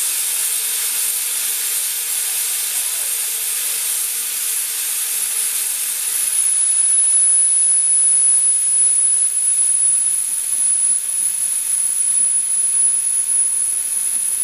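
Shay geared steam locomotive standing with steam venting in a steady loud hiss, which grows louder about six seconds in, with a thin high-pitched tone over it.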